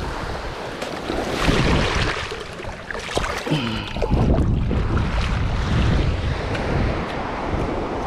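Ocean surf washing onto the beach, with wind gusting across the microphone and rumbling, stronger from about a second and a half in.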